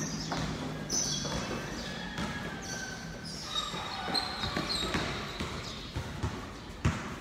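Pickup basketball game: a basketball bouncing on a concrete court with sneakers squeaking. A few quick bounces of the ball come near the end.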